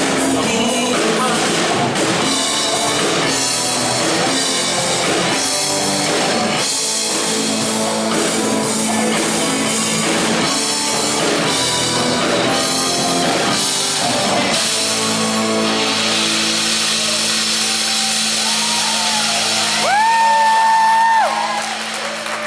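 Live pop-rock band with drum kit and a singing voice playing a song, then ending on a long held chord that rings on for several seconds. Near the end a loud shrill whistle rises, holds and drops.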